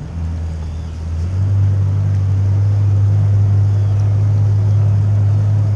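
Boat's outboard motor running steadily in a low drone, then throttled up about a second and a half in and held at the higher speed, as the boat is moved against the current.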